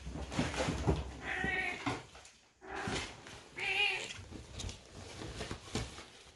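Mother cat meowing twice, scolding her kittens, over the rustling and scrabbling of kittens playing in a nylon pop-up cat tunnel.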